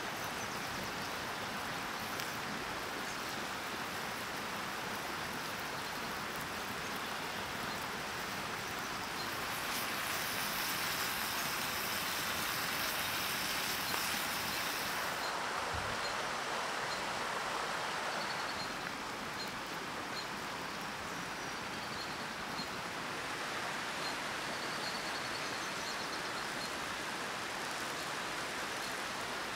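Beef burger patties sizzling in a pan over an open wood fire: a steady frying hiss that swells for a few seconds in the middle.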